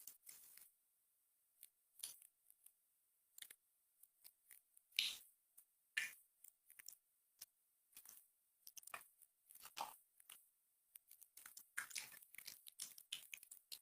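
Faint, irregular short clicks and crackles, coming in small clusters and growing busier near the end.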